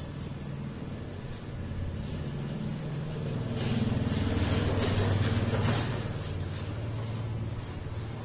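An engine running steadily, growing louder for about two seconds midway.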